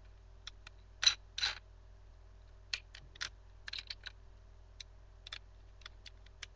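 Light, irregular plastic clicks and rattles of a small LEGO street sweeper model being handled and turned in a child's hands, with two louder clatters about a second in.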